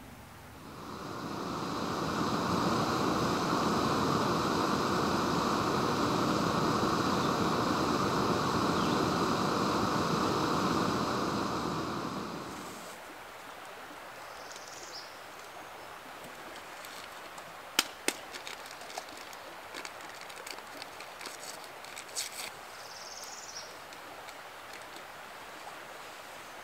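Steady rushing of running water, loud for about twelve seconds and then stopping. After it comes a quieter stretch with a few sharp knocks and two short, high bird-like chirps.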